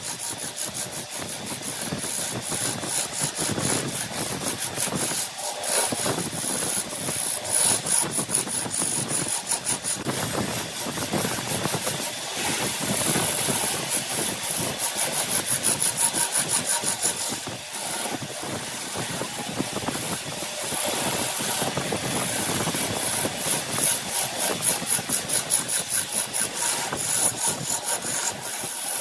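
A wood lathe spinning a workpiece while it is cut and smoothed against the spinning wood: a continuous scraping rasp with a fast, even ticking from the rotation.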